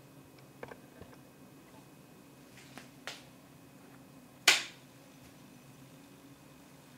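A sharp click about four and a half seconds in as the 250 W clear mercury vapour lamp is switched off, with a smaller click a second and a half before it, over a faint low steady hum.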